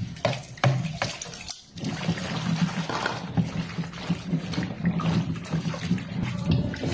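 Tap water running into a plastic basin while hands rub and rinse peeled taro in the water, with a few light knocks in the first second.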